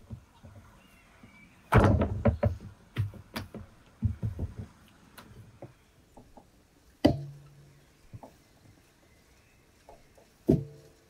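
Handfuls of minced meat being kneaded and slapped down into a steel pot: a quick run of wet slaps and thuds, then two single heavy thumps a few seconds apart, the pot ringing briefly after each.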